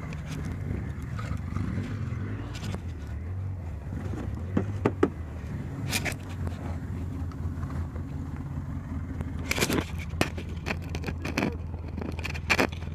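Side-by-side UTV engine running steadily at low revs while crawling over a rough mud trail, with several sharp knocks and scrapes a few seconds in and again near the end.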